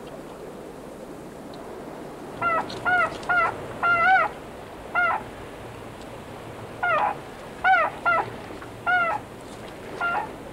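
Newborn North American beaver kits crying: about ten short, high calls, each arching up and then down in pitch, starting about two seconds in, over a low steady hiss.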